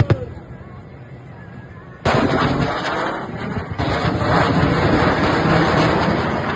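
Two heavy explosions about two seconds apart, the first hitting suddenly, each followed by several seconds of rumbling that slowly fades: ordnance striking targets in a military live-fire exercise.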